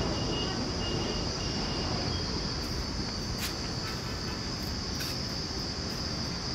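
Insects droning in the trees: one steady, high, continuous note, over a low rumble, with a few faint ticks near the middle.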